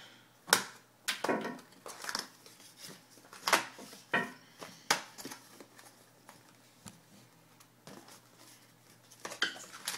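Plastic shrink-wrap being slit and pulled off a cardboard trading-card box, then the box lid and cardboard insert handled: a string of sharp crinkles, rustles and taps, busiest in the first half, quieter for a few seconds, then another cluster near the end.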